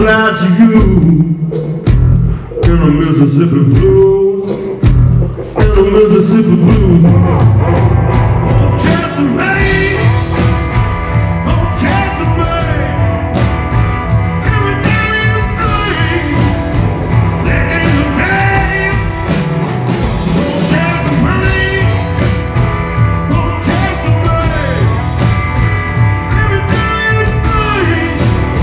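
Live blues-rock band playing: electric guitar over bass and drums. For the first few seconds the band hits and stops together, then settles into a steady driving groove about seven seconds in.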